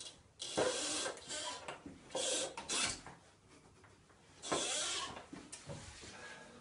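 A chair squeaking and creaking in three rasping bursts of about a second each, with a couple of short squeaks between them.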